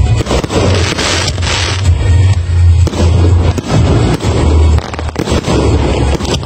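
Fireworks firing in quick succession, with rapid bangs and crackling pops, mixed with loud music that has a heavy bass line.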